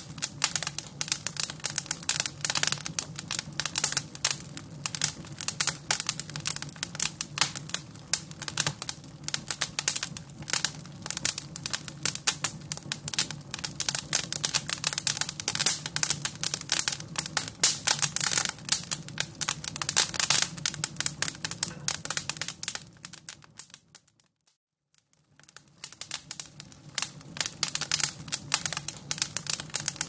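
Crackling fireplace sound, a dense run of quick irregular pops and snaps over a low steady hum. It fades away about 23 seconds in and comes back about two seconds later.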